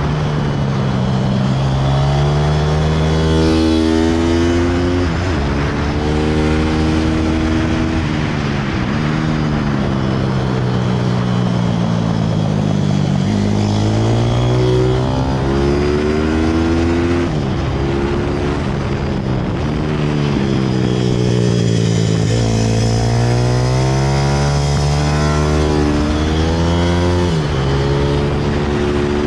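Pit bike's single-cylinder engine under hard acceleration on a track: the pitch climbs through each gear and drops at every upshift. It slows and falls off through a corner about halfway, then climbs through the gears again, with wind noise rushing over it.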